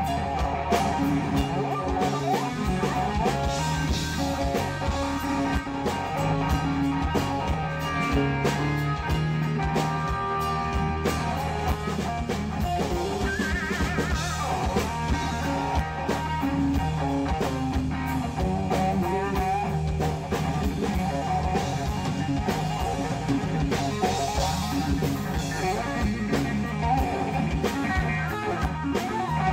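Live instrumental rock jam: electric guitar playing lead lines over bass guitar and a drum kit, improvised on the fly, with a wavering high note about halfway through.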